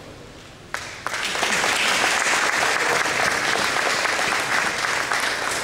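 An audience applauding, the clapping starting sharply about a second in and then holding steady.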